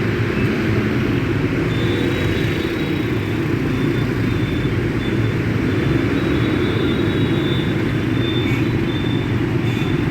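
Steady rumble of road traffic, with a faint high tone near 4 kHz that comes and goes in short dashes.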